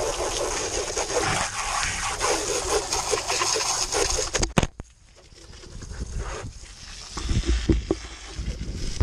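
Garden hose spray nozzle spraying water at close range, the water drumming on the handlebar-mounted camera and the pit bike, cut off suddenly with a click about four and a half seconds in. A few dull knocks follow near the end as the bike and camera are handled.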